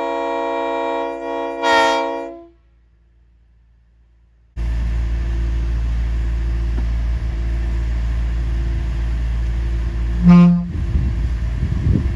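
Multi-chime railroad air horn sounding a sustained chord of several tones, swelling briefly just before it cuts off about two and a half seconds in. After a short gap a steady low rumble starts, and a short, deep horn blast sounds about ten seconds in.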